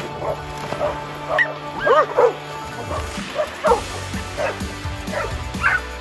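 Dogs barking and yipping, a string of short barks with the loudest about two seconds in, over background music.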